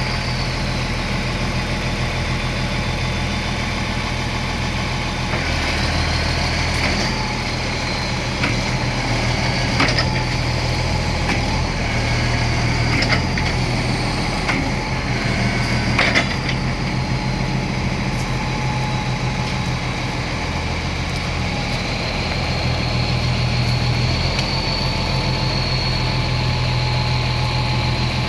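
Komatsu D65PX-12 crawler bulldozer's diesel engine running steadily, with a high whine that wavers up and down and a few sharp metallic knocks, the clearest about ten and sixteen seconds in.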